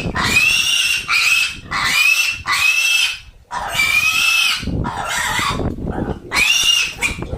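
A pig squealing loudly, about six high-pitched squeals, each under a second long, in quick succession. These are typical distress squeals of a pig being held for a vaccination injection.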